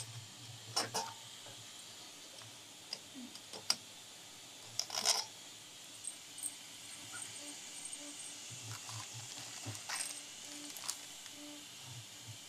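Scattered light clicks and knocks from hands handling a 3D printer's heated bed plate and its small metal hardware, with a short cluster of clicks about five seconds in and a few more near the end.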